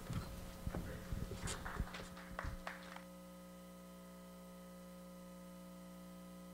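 Faint room noise of a large seated audience with scattered knocks and clicks. About three seconds in it cuts off abruptly and is replaced by a steady electrical hum.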